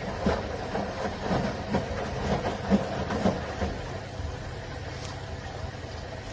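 Front-loading washing machine running with a steady hum. During the first three and a half seconds there is a run of irregular knocks and thumps, after which only the hum continues.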